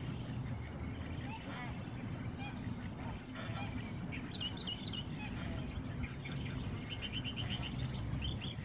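Black swan giving short honking calls, with a quick run of high chirps near the end, over a steady low rumble.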